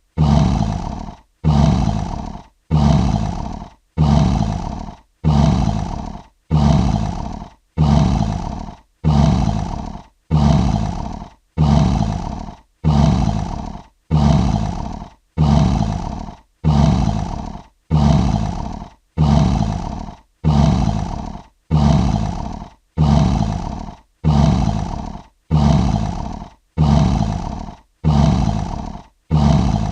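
A short lion roar repeated over and over, about one every one and a half seconds. Each roar starts loud and fades before a brief silence, like a looped sound-effect clip.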